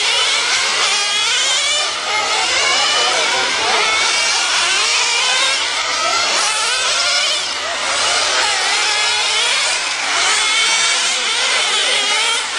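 Small nitro engines of several radio-controlled racing cars buzzing at a high pitch. Their pitch keeps rising and falling as the cars accelerate and slow around the circuit.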